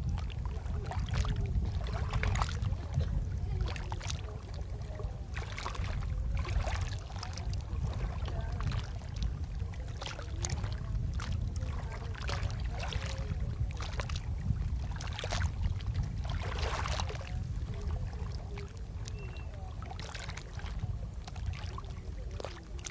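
Sea water splashing and sloshing in irregular bursts, as against the hull of a boat under way, over a steady low rumble.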